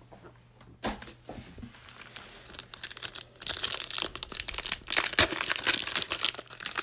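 Shiny Panini Prizm trading-card pack being torn open by hand. A few light handling clicks come first, then dense crinkling and tearing of the wrapper through the second half.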